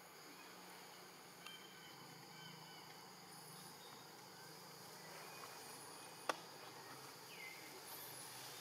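Faint forest ambience: a steady high insect drone with a few scattered short bird chirps, and one sharp click about six seconds in.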